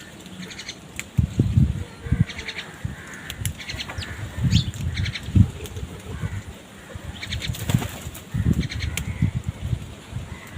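Crows beating their wings in several short, fluttering flurries as they scuffle over food, with a few short high bird calls in between.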